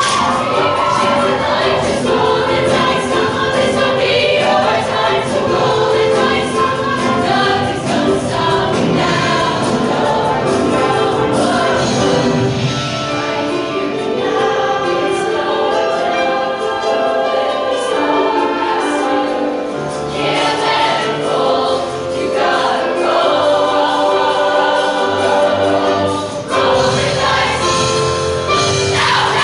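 A show choir singing in full chorus, many voices together over instrumental backing.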